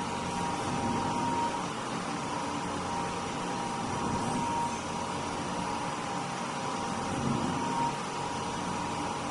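Lab powder blender's electric motor running steadily, a constant hum with a thin steady whine.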